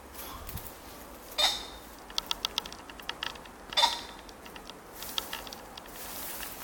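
Male ring-necked pheasant calling: a loud harsh call about a second and a half in, a quick run of short sharp pulses, then a second harsh call near four seconds in.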